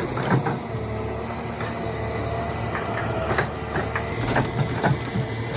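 Heavy machine's engine running steadily with a low hum, with scattered sharp cracks and knocks, most of them in the second half.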